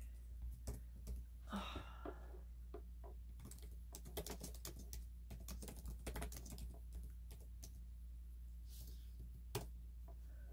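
Typing on a keyboard: a scattered run of light key clicks, thickest in the middle, over a steady low hum.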